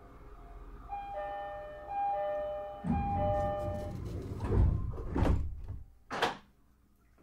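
An E131 series electric train's door chime sounds a short repeating tune of bell-like notes. The sliding doors then close with a rushing noise and a few heavy thuds.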